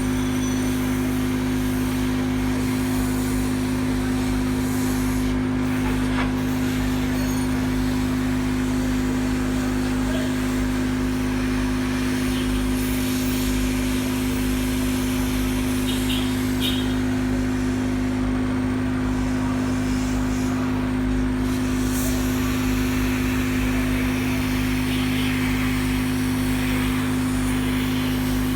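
Electric hot-air blower running steadily with a constant motor hum, drying a freshly washed motherboard.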